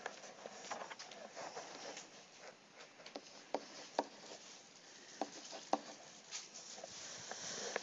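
Faint, scattered taps and scratches of a stylus handwriting on a tablet.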